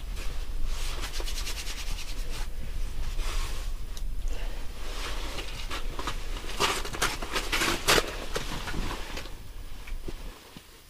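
Rustling and handling noises, with a fast run of ticks about a second in and the loudest rustling about two-thirds of the way through, over a low steady rumble that stops near the end.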